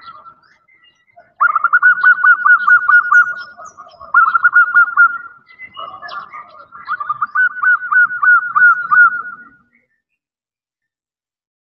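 Female zebra dove (perkutut) giving three long runs of rapid, pulsed cooing. This is the call a hen uses to draw a male.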